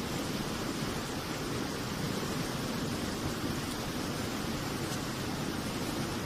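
Flowing water rushing steadily: an even hiss with no separate splashes or knocks.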